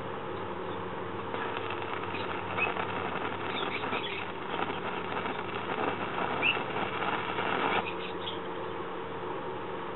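Arc welding with a stick electrode on steel: the arc crackling steadily, starting about a second in and stopping just before the eight-second mark.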